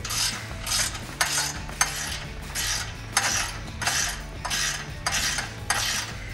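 Hand ratchet with a 13 mm socket loosening the exhaust flange nuts: repeated bursts of quick metallic clicking, about two back-swings a second.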